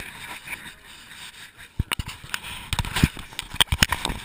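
Zip-line gear clicking and knocking: a run of sharp, irregular clicks starting about two seconds in, over a faint hiss.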